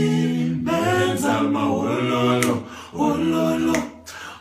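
A man singing a cappella, a few long-held notes in short phrases with no instruments.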